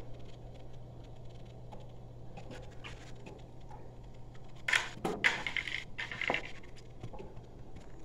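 Faint steady hum of a small hydronic circulator pump running, with a few short scrapes and clicks of handling about halfway through.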